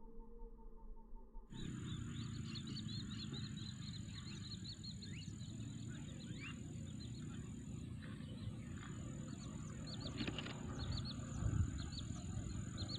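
A faint steady tone, then from about a second and a half in, open-country ambience: a steady high insect drone and many quick bird chirps over a low rumbling noise.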